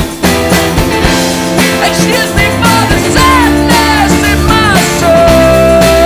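Indie rock band recording: a male singer's sung lines over a steady drum beat and band, ending on a long held note near the end.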